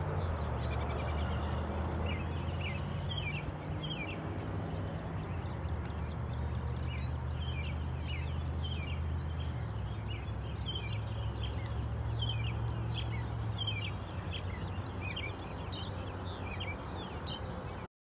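Outdoor ambience: small birds chirping in quick short notes over and over, above a steady low rumble. It cuts off abruptly near the end.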